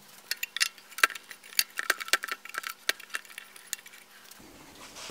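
Rapid, irregular light metallic clicks and clinks as fingers work the old toothed rubber drive belt off the pulleys inside an open Bolex M8 8mm film projector mechanism, thinning out near the end.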